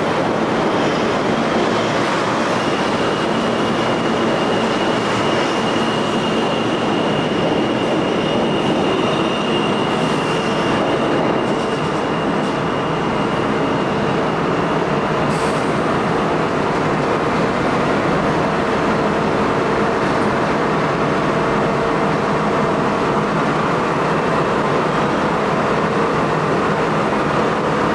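New York City subway train running on the rails: a steady, loud rumble of wheels on track, with a thin, high wheel squeal held through the first half and a lower drawn-out tone later on.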